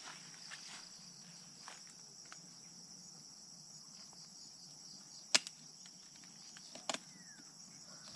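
Steady high-pitched chirring of insects, with two sharp clicks cutting through it: the loudest about five seconds in, and a quick double click about a second and a half later.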